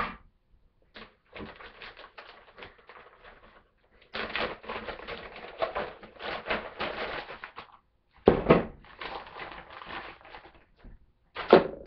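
Unpacking and handling a mobile washer, a plastic plunger-style hand clothes washer: a long run of quick rustling and rattling clicks, louder about halfway through, then two loud knocks a few seconds apart.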